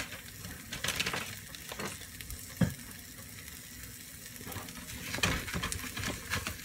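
Omelette sizzling in a nonstick frying pan: a steady hiss with scattered clicks and a low knock. Near the end a spatula clicks against the pan as it goes in under the eggs.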